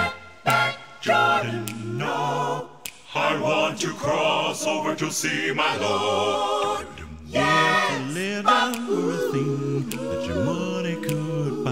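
Six-voice male a cappella group singing in close gospel-jazz harmony, voices only, with a deep bass voice carrying the low line beneath the stacked upper parts.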